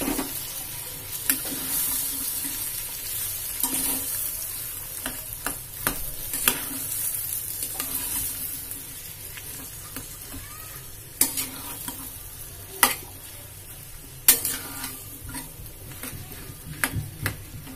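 A steel spatula stirring and scraping boiled potatoes and peas in a steel kadai, knocking against the pan every second or two, with a steady sizzle of frying oil underneath.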